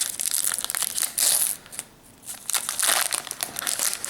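Foil wrapper of a Pokémon trading card booster pack crinkling and crackling as it is handled and opened, in rapid bursts with a short pause about halfway through.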